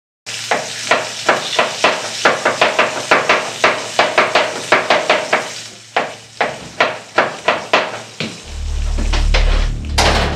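A rapid, uneven run of sharp knocks with a ringing tone, about three or four a second, stopping after about eight seconds. Deep bass music starts near the end.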